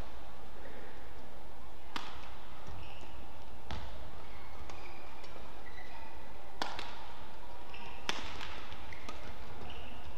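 Badminton rally: sharp cracks of rackets striking a shuttlecock, each about one and a half to three seconds apart, with short squeaks of shoes on the court between the hits.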